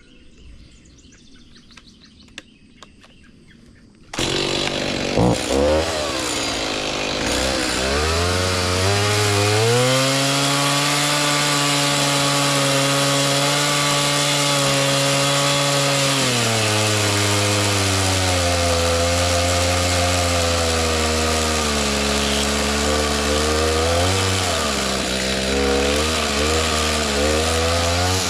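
Chainsaw running while limbs are trimmed: it starts abruptly about four seconds in, revs up and holds at high speed for several seconds, then drops to a lower, wavering speed. Before it, quiet outdoor background with a few small clicks.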